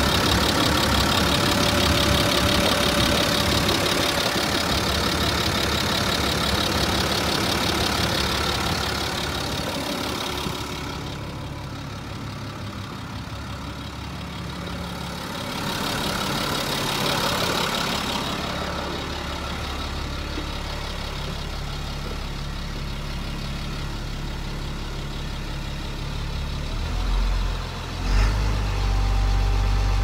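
Turbo-diesel engine of a 2001 GMC Blue Bird school bus idling steadily. It is loud and full close to the open engine bay, then fainter as the microphone moves away along the side of the bus. A couple of short knocks come near the end, and then the idle becomes a deep steady drone heard from inside the cab.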